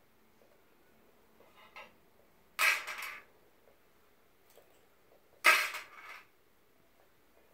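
Colored pencils clattering against a metal tin on a tile floor as a baby handles them: a few faint ticks, then two short, loud clatters about three seconds apart.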